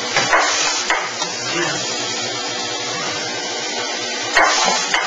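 Steady machine noise from an automated robotic screw-driving cell, with short bursts of hiss: two in the first second and two more near the end.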